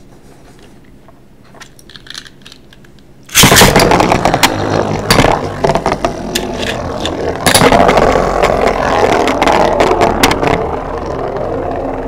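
Two Beyblade spinning tops, Galaxy Pegasus and Flame Byxis, launched into a plastic stadium about three seconds in, after a few faint clicks while the launchers are readied. The tops then spin, scrape and clash, with many sharp clicking hits.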